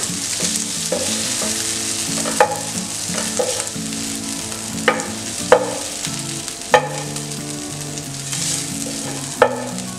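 Chicken pieces sizzling in a nonstick frying pan while a wooden spatula scrapes and stirs them to scoop them out, with about five sharp knocks of the spatula against the pan.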